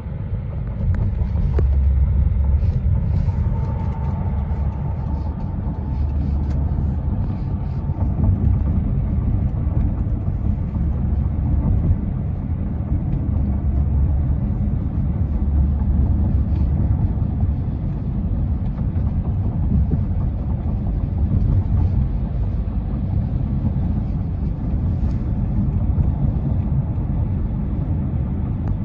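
Steady low road rumble of a moving car heard from inside the cabin: tyre and engine noise.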